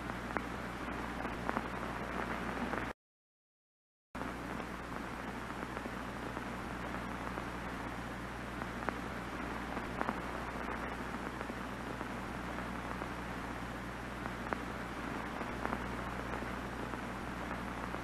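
Steady hiss of television static with faint crackles and a low hum underneath. About three seconds in it cuts out to complete silence for roughly a second, then resumes.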